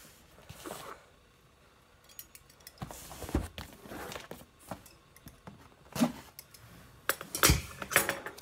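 A large cardboard box being handled and opened on a tabletop: scraping and rustling of the cardboard with knocks against the surface, the loudest noises coming in a cluster near the end.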